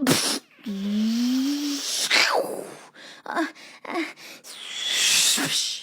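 A person's voice making a cappella mouth sound effects: a hissing rush with a low hum rising in pitch under it, a falling swoop, a few short blips, and a whooshing hiss that swells near the end.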